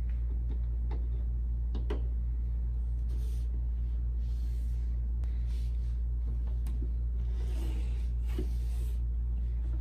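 A steady low hum, with a few faint light taps of a small cube being tapped and moved on a table.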